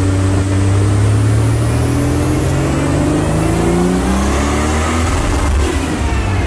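Nissan Silvia S14's swapped RB25 straight-six turbo engine with a Garrett G30-770 turbocharger, pulling under load on a chassis dyno. The engine note and a high whine rise steadily as the revs climb through the run.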